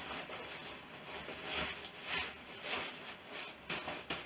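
Rustling of rucksack and stuff-sack fabric as a packed inflatable sleeping mat is pulled out, in several short swishes, with a couple of sharp clicks near the end.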